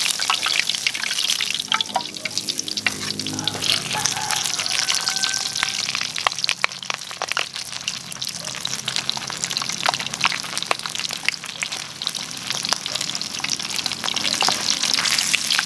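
Pork leg frying in hot oil in a wok, the oil sizzling steadily with many sharp crackling pops throughout.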